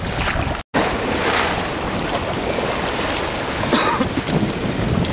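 Wind buffeting the microphone over the wash of sea waves, a steady rushing noise with one momentary break in the sound about two-thirds of a second in.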